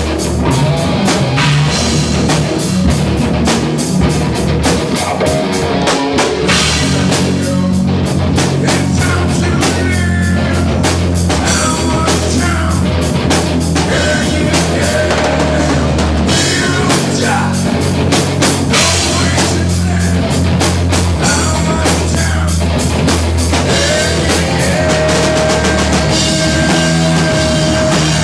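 Live rock band playing loudly: a drum kit keeping a fast, busy beat over bass and electric guitar, with one note held steadily near the end.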